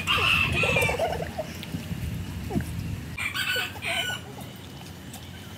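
A rooster crowing, with clucking, in two bouts: one at the start and another about three seconds in.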